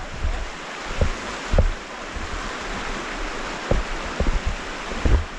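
Steady rush of flowing creek water, with short low thumps of wind buffeting the microphone every second or so.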